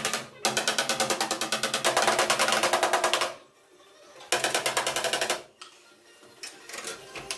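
Rapid, even mechanical rattling in three bursts of about eight strokes a second, the longest lasting nearly three seconds, from a bodywork tool working on the car's rear panel.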